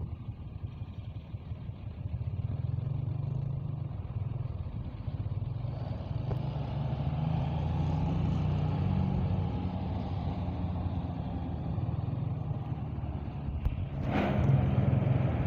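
Motor vehicle engine running, a steady low rumble that grows louder about two seconds in. A short hiss comes near the end.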